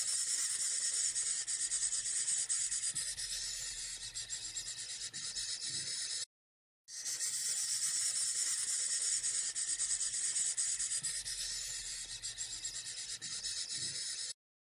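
Snake hissing sound effect: two long, steady hisses of about seven seconds each, with a half-second break between them.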